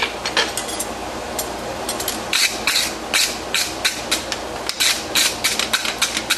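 A quick, irregular series of light hammer strikes on steel, over a steady low hum.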